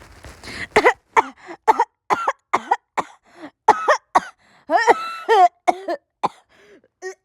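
A person coughing in a long run of short coughs, about two a second, each with a pitched edge to it and brief gaps between them.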